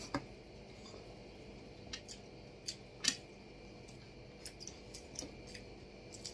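Faint, scattered eating sounds: a handful of soft clicks and smacks from people chewing chicken and rice eaten by hand, spread over a quiet room.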